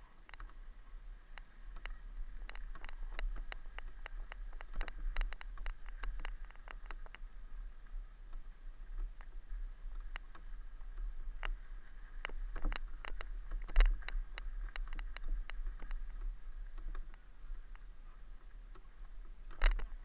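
Irregular clicks and rattles in clusters over a steady low rumble, with the sharpest knock about fourteen seconds in and another near the end.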